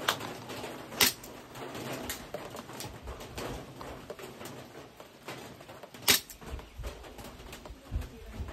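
Pistol shots fired in slow target practice: two sharp reports about a second apart, then a third about five seconds later.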